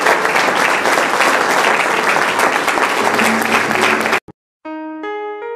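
Crowd applauding, cut off suddenly about four seconds in; after a brief silence, slow music with held keyboard notes begins.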